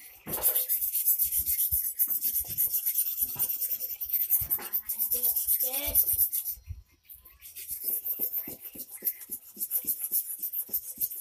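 Steel kerambit blade being honed on a whetstone: the metal scrapes across the stone in a long continuous run of strokes, stops briefly a little past halfway, then resumes in short, quick, even strokes.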